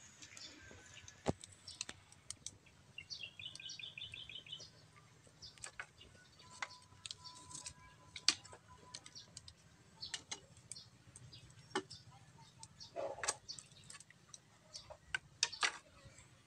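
Wood fire crackling under a cooking pot: scattered sharp crackles and pops at irregular intervals. About three seconds in, a bird gives a quick run of high chirps.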